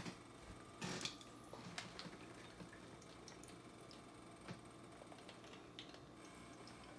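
Faint kitchen sounds: a few light clicks and taps of tongs against a nonstick skillet as shredded meat is set on a tortilla, the clearest about a second in, then only small scattered ticks while shredded cheese is sprinkled by hand.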